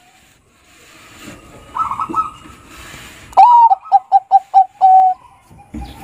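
Zebra dove (Bangkok-type perkutut) cooing its song: about three and a half seconds in, a rising opening note, a quick run of four or five short notes and a held lower closing note. A fainter burst of three short, higher notes comes about two seconds in.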